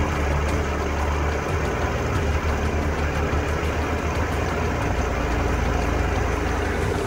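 Truck crane's engine running with a steady low rumble, powering the crane as it lifts and swings a load on its hook.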